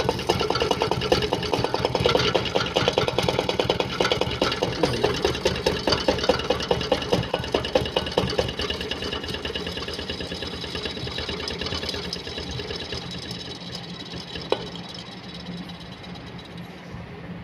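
Freezer compressor running with a rapid, even mechanical clatter that slowly dies down.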